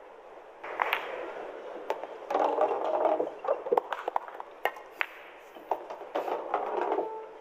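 Pool balls clicking several times as shots are played, the cue striking the cue ball and balls knocking together, over a background murmur in the hall.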